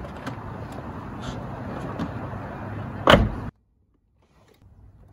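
Porsche 986 Boxster's driver door being opened with small clicks, then shut with a single loud thud about three seconds in. The sound drops suddenly to near silence just after.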